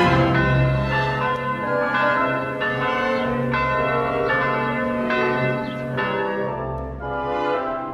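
Church bells ringing, with fresh strokes about twice a second over a sustained hum.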